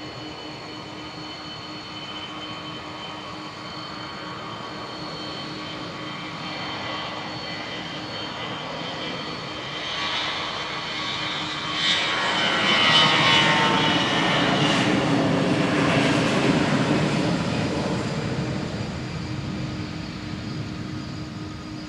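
Jet airliner on its takeoff roll passing by: the engine noise swells to a peak about halfway through, dropping in pitch as it passes, then fades away. A steady hum and whine from a stationary source continues underneath.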